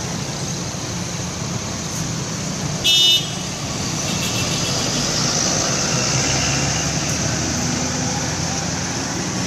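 Steady road traffic and engine noise with one short, loud, high-pitched horn toot about three seconds in, followed by fainter horn tones.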